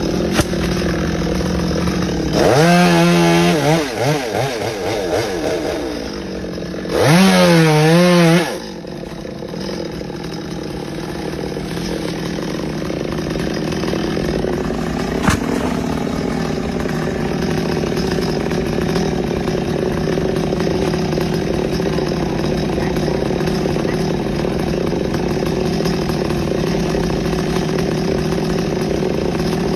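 Chainsaw engine running, revved up hard twice in the first nine seconds, then running steadily for the rest.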